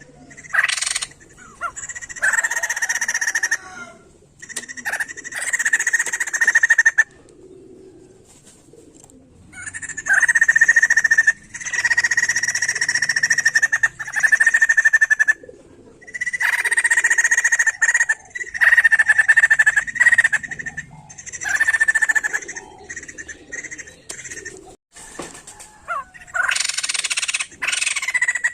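White-crested laughingthrush (poksay jambul) calling in loud, harsh chattering phrases of one to three seconds each, repeated with short pauses between them.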